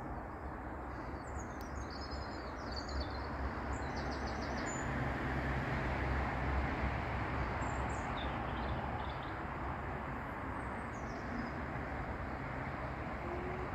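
Low, steady rumble of a distant jet aircraft that swells gently near the middle and eases off again, with birds chirping briefly several times.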